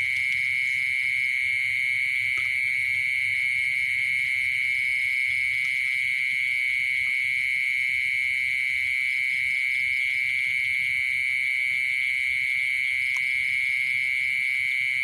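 Dense night insect chorus: a loud, steady high-pitched trill that never lets up. A few faint clicks sound over it.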